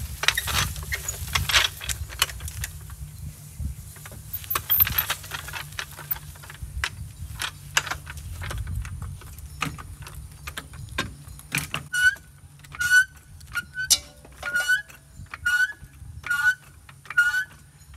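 Metal clattering and knocks, then a regular run of short squeaks, a little over one a second, from a part that still squeaks even after being lubricated.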